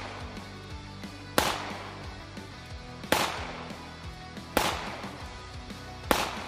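Four pistol shots from a Glock 19, sharp cracks with a short ringing tail, spaced about a second and a half apart, over background music.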